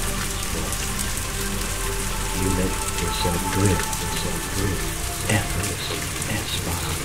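Ambient relaxation soundscape: a steady rain-like hiss with scattered pattering ticks over low sustained drone tones.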